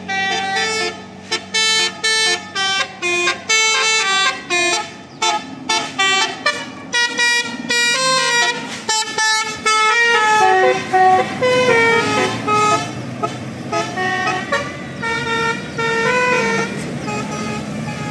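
Vehicle-mounted basuri melody horn playing a fast tune of short notes that step from one pitch to the next, over the rumble of passing road traffic.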